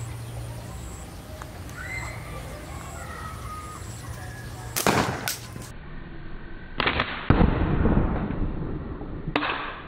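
Slingshot shot: a sharp double snap of the rubber bands releasing about five seconds in, then a loud bang with a long low rumble as the shot hits the tree, and another sharp crack near the end.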